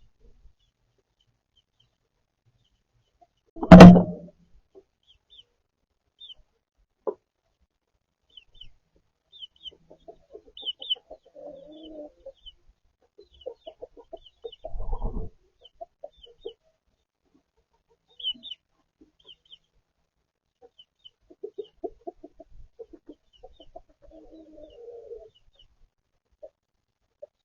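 Chickens clucking in low, soft runs, with scattered short high chirps. A sharp thump about four seconds in is the loudest sound, and a second, shorter knock comes at about fifteen seconds.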